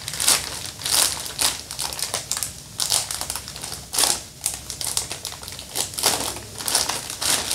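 Plastic vacuum storage bag crinkling and rustling in irregular bursts as it is handled while a hanger is pushed into place through its hole.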